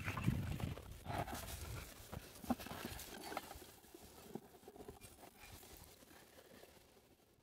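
Scattered knocks, clatter and rustling of a small homemade trike rolling over roots and rough forest ground and brushing through spruce branches, with a low rumble in the first second, fading away.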